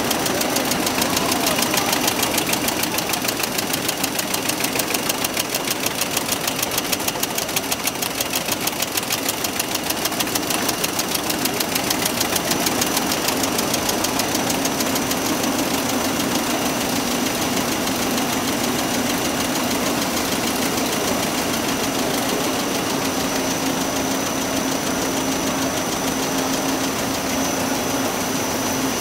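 SimSun Apollo-80FCV folder gluer running in production: a steady mechanical whir with a rapid, even ticking, a steady hum and a thin high whine that grows stronger in the second half.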